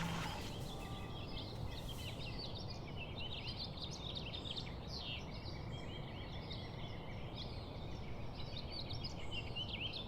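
Many small birds chirping and twittering, quick short calls gliding up and down in pitch, over a steady low background rumble. The last of a music track fades out at the very start.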